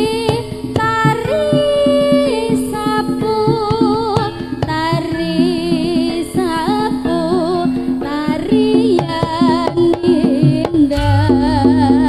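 Live jaranan music: kendang drum strokes and a held mid-pitched tone under a wavering, heavily ornamented melody line. A deep low tone comes in about eleven seconds in.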